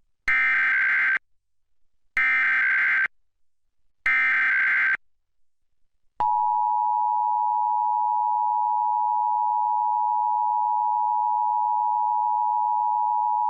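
Emergency Alert System SAME header: three short bursts of digital data tones about two seconds apart. About six seconds in, the steady two-tone EAS attention signal (853 and 960 Hz) begins, opening a required monthly test.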